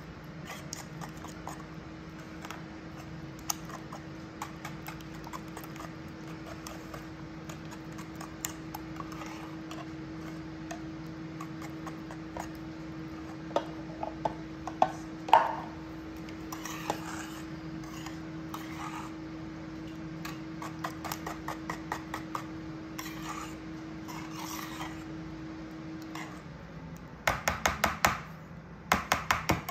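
Electric mixer whisking heavy cream into a beaten-egg custard: a steady motor hum that winds down and stops about four seconds from the end. A quick run of metal clinks against the bowl follows.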